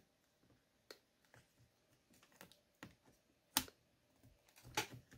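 Scattered small clicks and taps as a replacement laptop battery pack is handled in an opened ASUS X202E notebook and its wire connector is worked toward the socket on the motherboard. The loudest click comes about three and a half seconds in, with a short cluster of clicks near the end.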